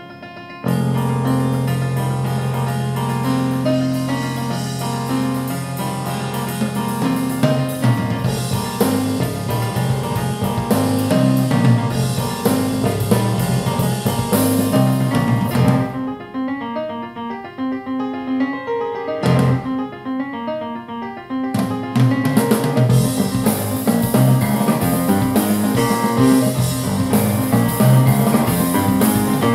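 A jazz-fusion piano trio recording of piano, bass and drums, played through a KRK Rokit 5 G3 (RP5 G3) powered studio monitor. The full band comes in suddenly about half a second in. About halfway through the bass and drums drop out for a few seconds, leaving the piano, and then the full band comes back in.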